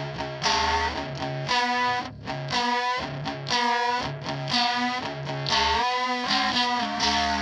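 Electric guitar played through a chain of effects pedals, among them a DOD Gonkulator ring modulator and an EarthQuaker Devices Aqueduct vibrato whose knobs are being turned. Notes or chords are struck about once a second and ring on, some wavering in pitch.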